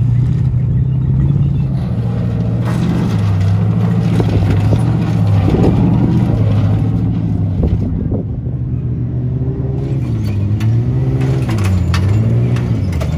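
Off-road race car engines laboring up a rocky trail, the revs held and then swinging up and down from about ten seconds in, with scattered knocks and clatters in the second half.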